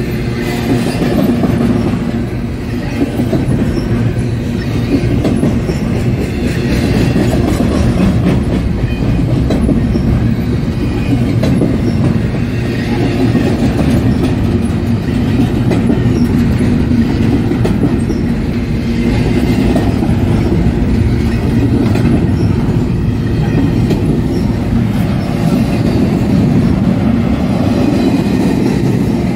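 Intermodal freight train's double-stack container cars and trailer-carrying flatcars rolling past, a steady loud noise of steel wheels running on the rails.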